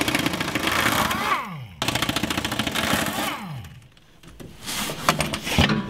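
Pneumatic impact wrench hammering on the rear sway bar bolts in two runs of about two seconds each, the air motor winding down in a falling whine after each run. A few sharp metal clinks follow near the end.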